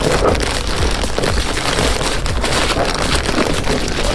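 Clear plastic wrapping of a pack of paper towels crinkling and rustling continuously as the pack is squeezed and pushed into a plastic tissue box.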